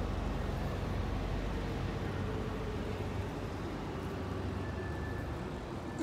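Low rumble of passing vehicles that fades after about four seconds, with a faint whine, and a sharp click at the very end.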